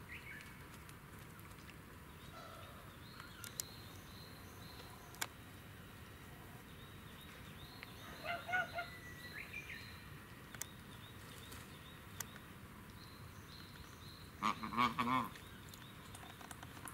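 Domestic geese and ducks calling: a short call about eight seconds in, then a louder run of rapid calls near the end, over a steady outdoor background with a few faint clicks.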